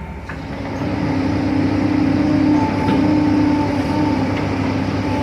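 Excavator's diesel engine running under load, with a steady whine over the rumble, getting louder about a second in and then holding.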